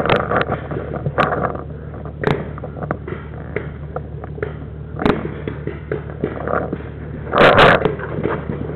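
Paintball markers firing: sharp single pops a second or a few seconds apart, with a louder, denser burst of noise a little before the end, over a steady low rumble.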